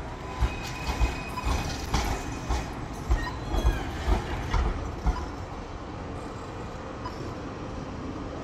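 Articulated tram passing, its wheels clattering on the track in a run of irregular knocks. After about five seconds the knocks stop and only a steadier, quieter rumble remains.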